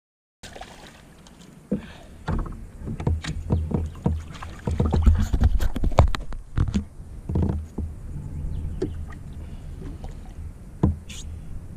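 A hooked fish splashing at the surface beside a kayak as it is played on a spinning rod, with many short knocks and handling noise from the kayak hull over a steady low rumble.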